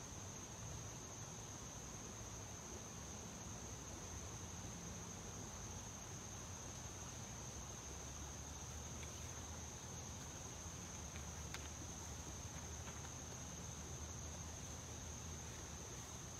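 Insect chorus in a garden: one steady, high-pitched trill that holds unbroken, faint over a soft outdoor background hiss.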